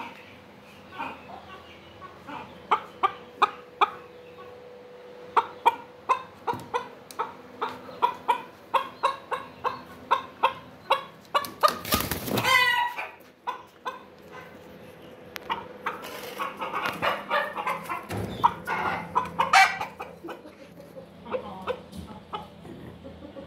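Chocolate Silkie chicken clucking in runs of short repeated calls, about two or three a second, with a louder wavering call about halfway through. A faint steady hum runs underneath.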